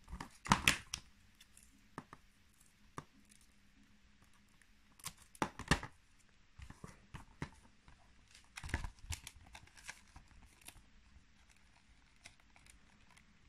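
Filmoplast self-adhesive paper tape being peeled and pressed along the edge of a paper book cover: bursts of paper crackling and rustling, loudest about a second in, around five to six seconds, and near nine seconds, with small ticks between.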